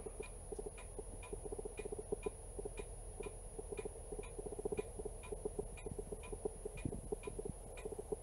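A camera's autofocus motor hunting: a faint, fast, irregular clicking with a lighter regular tick about three times a second and a thin high whine. This is the sign of a camera that keeps trying to re-focus.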